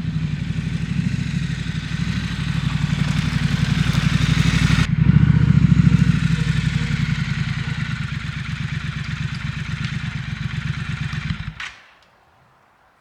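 Triumph Scrambler 1200 XE's parallel-twin engine running with a steady pulsing exhaust note. It grows louder over the first few seconds, then stops abruptly near the end.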